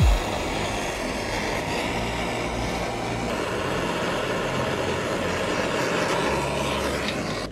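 Handheld gas torch burning with a steady roaring hiss as its flame heats the steel steering stem bearing seat to free the stuck bearing cup. A short thump right at the start.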